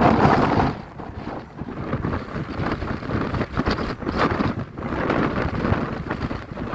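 Strong gusty wind buffeting the microphone: a loud gust eases off under a second in, then the wind surges and drops irregularly.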